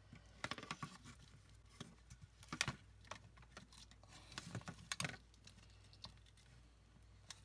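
Faint, irregular clicks and knocks of hard plastic as an opened headphone earcup and its replacement phone battery are handled and pressed into place. The sharpest knock comes about two and a half seconds in, with a couple more around five seconds.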